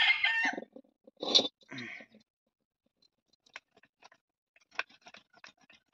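Raw whole chicken being cut on a bonti blade: sparse, faint crackles and clicks as the blade goes through skin, flesh and joints, in the second half. A brief louder noise comes about a second in.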